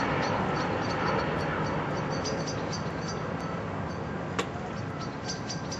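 Outdoor ambience: a steady low rumble with many short, high chirps scattered through it, and a single sharp pop about four and a half seconds in.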